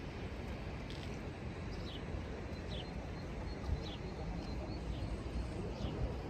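Small birds chirping outdoors: a series of short calls that drop in pitch, about one a second, over a steady low rumble of outdoor background noise.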